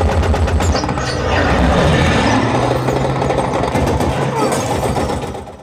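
Loud WWII bomber battle soundtrack played through a Meyer Sound home-theater speaker system: aircraft engines droning over a heavy low rumble, with a rapid rattle of gunfire. It cuts off suddenly at the end.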